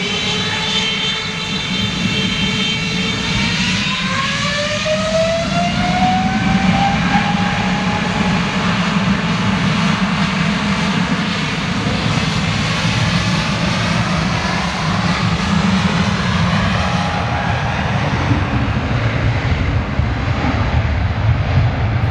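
Jet airliner engines running loud, a steady roar with whining tones that rise in pitch over several seconds.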